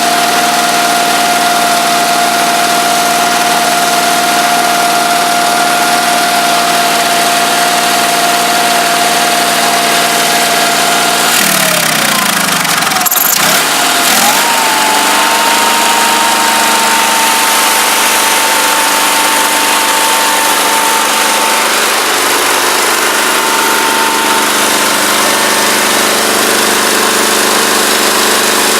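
Old garden tractor's engine running steadily. About eleven seconds in its speed falls away, there is a sharp click, and then it speeds back up and holds a higher, steady pitch.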